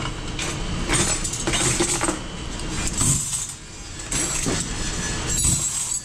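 Dishes and cutlery clinking and clattering in a plastic bus tub as they are sorted by hand, several clatters in a row over a steady low hum.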